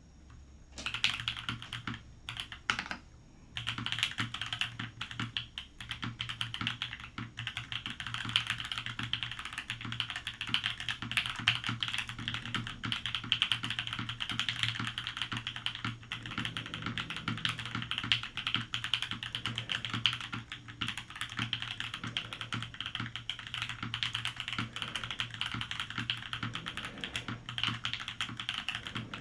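Typing on a Matrix Lab 1.2og mechanical keyboard: top-mounted aluminium plate, JWK Opblack linear switches and PBT-spacebar keycaps, with a deep, loud keystroke sound. A few separate keystrokes about two to three seconds in, then steady, fast typing.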